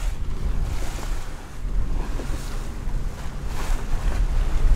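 Wind buffeting the microphone over the low rumble of a fishing boat trolling through choppy sea, with rushes of water splashing along the hull.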